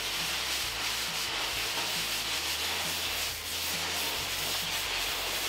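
Cutting torch hissing steadily as it cuts through 3/16-inch steel plate.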